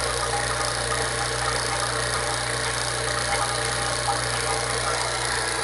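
Refrigeration vacuum pump running steadily with a constant hum, evacuating a refrigerator's sealed system after a compressor and filter-drier replacement.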